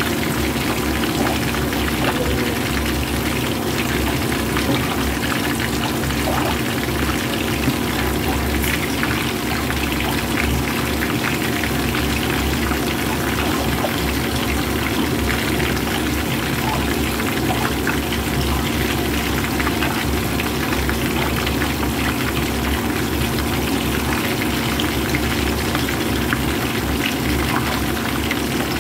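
Hot oil sizzling and crackling steadily around whole fish frying in a pan, over a steady low hum.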